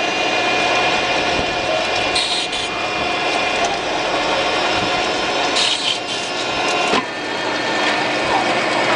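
RF-46SF gear-head drill-milling machine running, its motor and gearbox giving a steady whine over dense mechanical noise. Two brief louder hissing rasps come about two and five and a half seconds in, and a sharp click about seven seconds in.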